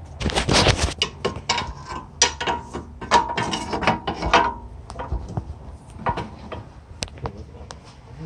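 Rapid mechanical clicking, knocking and rattling, with a faint squealing tone from about one to four and a half seconds in.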